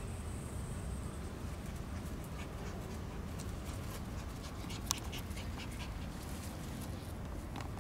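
Seven-week-old red Shiba Inu puppy panting close by in quick, uneven breaths, starting a couple of seconds in. A single sharp click comes about five seconds in.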